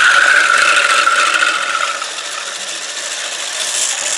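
MEGAWISE 800-watt immersion hand blender running with its wire whisk attachment, whipping cream in the plastic beaker: a high motor whine over a steady whirring, the whine sagging slightly and easing off about halfway through.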